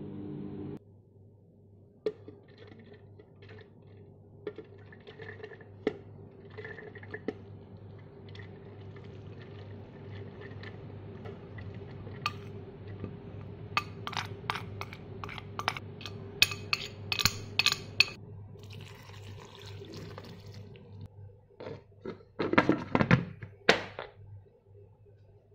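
Hulled mung beans being scraped with a metal spoon from a ceramic bowl into a blender jar: scattered clicks and scrapes, a run of quick clinks past the middle, and a few louder knocks near the end, over a faint steady hum.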